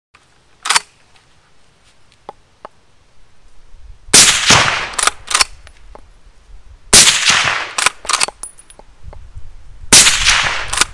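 Three shots from a suppressed Beretta BRX1 straight-pull rifle in .308 Win, about three seconds apart, each followed by two quick clicks as the straight-pull bolt is cycled back and forward. A single sharp click comes first, under a second in.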